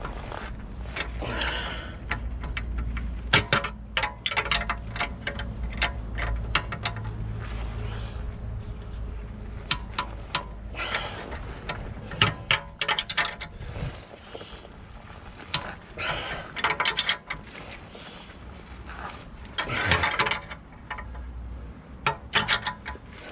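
Ratchet spanner clicking in quick bursts as a nut is wound along a threaded-rod puller, straining to draw a seized rear lower suspension bush out of a BMW E65's hub carrier.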